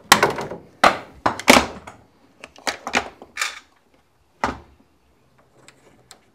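Plastic PEX water tubing knocking and scraping against wooden ceiling joists as it is handled and fed through. An irregular run of sharp knocks and rubs, thickest in the first second and a half, with a last knock about four and a half seconds in.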